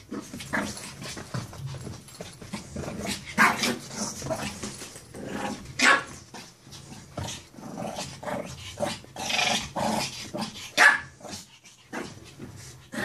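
A Shih Tzu puppy play-growling and giving short barks as it attacks a stuffed toy dog, in irregular bursts with a few sharp, loud peaks.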